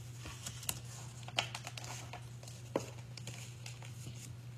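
Picture book pages being handled and turned: light paper rustles with a few sharp clicks, the loudest about a second and a half and nearly three seconds in, over a steady low hum.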